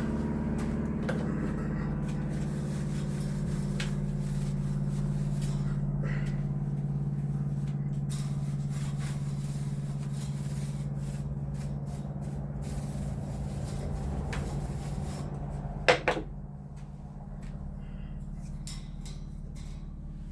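Steady machine hum in the background, with a sharp knock about 16 seconds in and a lighter click a few seconds later, as of parts being handled.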